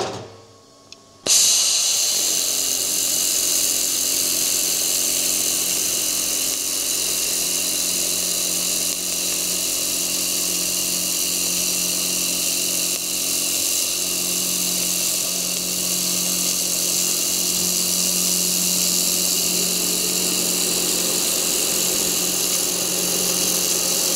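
xTool MetalFab 1200 W handheld laser welder running a long continuous weld on sheet-steel car body panel: a steady machine hiss with a faint low hum, starting abruptly about a second in.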